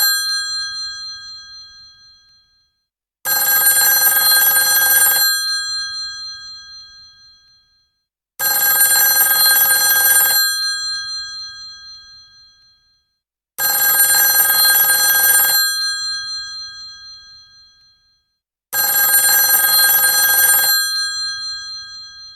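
Old telephone bell ringing in bursts of about two seconds, repeating about every five seconds, four times. Each burst is a rapid clatter of the clapper on the bell, and the bell keeps ringing on and fading after each burst stops.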